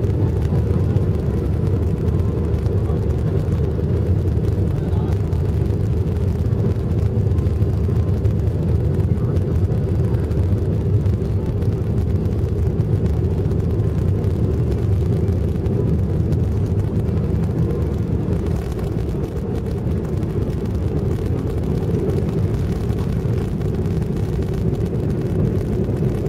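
Steady low rumble of an airliner's engines and airflow heard inside the passenger cabin as the aircraft rolls on the runway after landing, dipping slightly in level about two-thirds of the way through.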